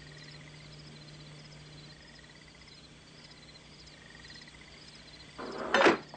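Faint night ambience of insects chirping in short repeated trills over a low steady hum. Near the end comes a sudden loud, noisy burst lasting about half a second.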